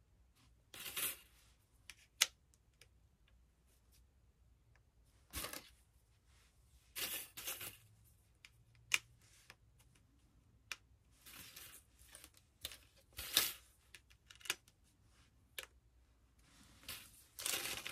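Thin metal cutting dies clicking and clinking against each other as they are sorted by hand, with brief rustling of the storage pouches they are slid into. The sounds come in scattered short bursts with a few sharp clicks.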